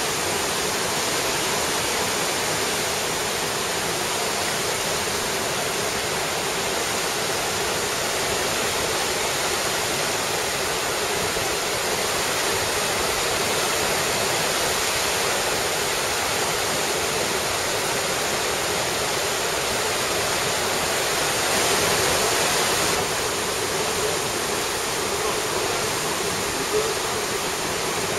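Strong tidal current rushing and churning through a narrow strait, a steady rush of turbulent water from whirlpools and white water, swelling slightly for a couple of seconds about three-quarters of the way through.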